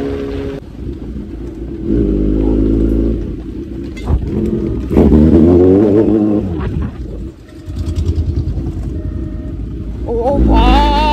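Kawasaki Z900's inline-four engine under way, its pitch rising and falling several times as it accelerates and shifts, with wind rushing over the microphone.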